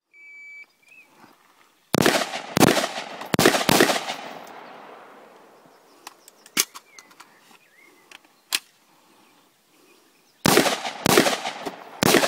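A shot timer beeps, then a semi-automatic rifle fires a quick string of about five shots with a long echo rolling off. Two thinner single cracks follow in the middle, and another quick string of shots comes near the end.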